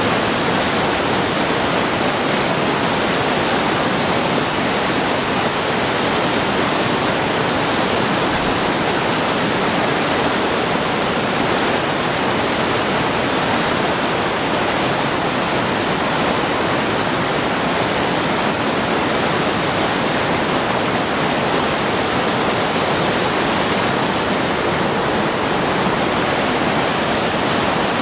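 Whitewater river rapids rushing steadily, a constant dense noise of churning water.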